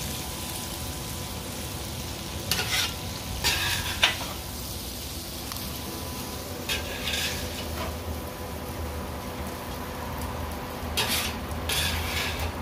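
Bacon and ground beef sizzling on a Blackstone flat-top griddle, with several short scrapes of a metal spatula across the steel griddle as the meat is scooped onto a plate.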